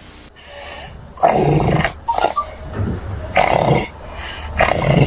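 Loud, rasping snoring-like sounds repeating roughly once a second.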